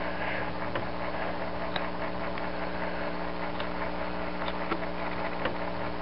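A steady mechanical hum made of several even tones, with a few faint, scattered clicks.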